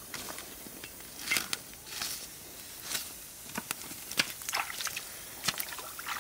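Irregular sharp crackles and knocks, several seconds apart: firewood sticks shifted and burning under a wok on a stone campfire hearth.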